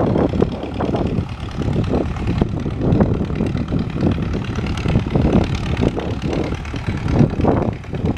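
A crawler tractor's diesel engine running as the tractor moves over the dirt, heard as an uneven low rumble.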